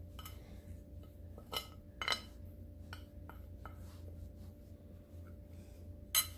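Metal spoon stirring a dry spice and gram-flour mix on a ceramic plate, scraping and clinking against the plate several times, with the loudest clink near the end.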